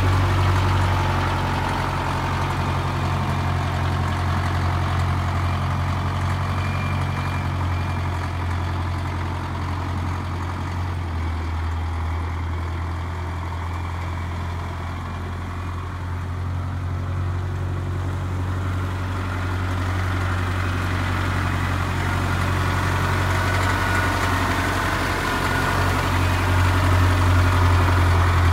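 Caterpillar 920 wheel loader's diesel engine running steadily as the loader drives. It grows fainter and drops in pitch about a third of the way in as the loader moves off, then grows louder again near the end as it comes back close.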